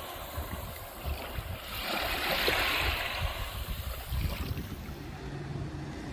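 Small waves washing up onto a sandy beach, a hiss of surf that swells about two seconds in and dies away after about four seconds.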